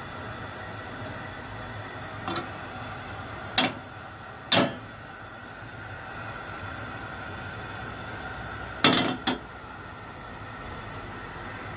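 Steady hiss of a lit gas stove burner in a kitchen, broken by five sharp knocks. Two of the knocks come close together about nine seconds in.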